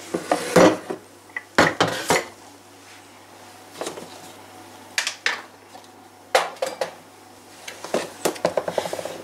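A plastic spoon knocking and scraping against a plastic mixing bowl of sticky dough, in short irregular clusters of clacks.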